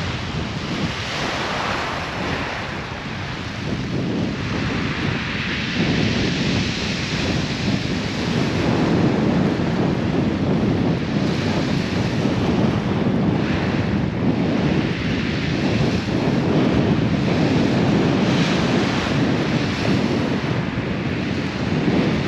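Waves breaking and washing on a shingle beach, rising and falling, with wind buffeting the microphone.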